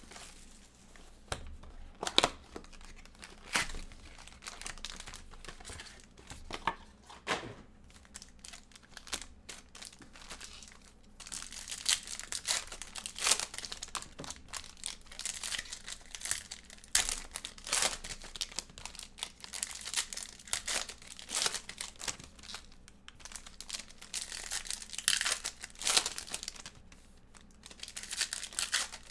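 Foil trading-card pack wrappers crinkling and tearing open: the packs from a 2023 Panini Phoenix H2 football box. For the first ten seconds or so there are scattered sharp clicks and knocks of the cardboard box being handled. After that the crinkling runs almost without a break.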